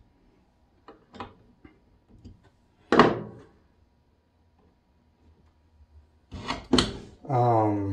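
Handling noises from working on an LED light fixture: a few light clicks, one sharp knock about three seconds in, then a couple of heavier thumps near the end.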